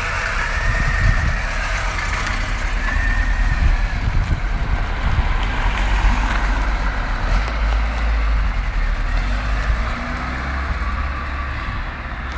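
Volkswagen Passat B4 estate driving slowly away over brick paving: a steady low engine rumble with tyre noise, easing off slightly near the end.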